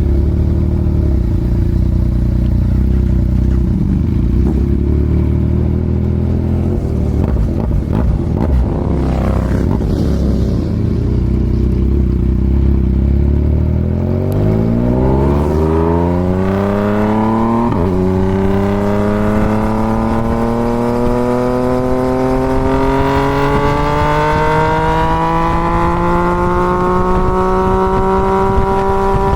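2024 Yamaha MT-09's inline three-cylinder engine through a full Toce exhaust, running at low, steady revs, then accelerating from about halfway, its pitch climbing steadily. There is a brief drop in pitch near two-thirds of the way in, a gear change, before it rises on again.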